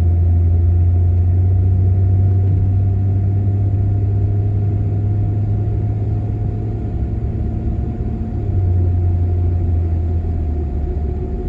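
Steady low drone of a vehicle's engine and tyres on the road, heard from inside while driving, with a faint steady hum above it. The drone eases slightly about seven seconds in and builds back a second later.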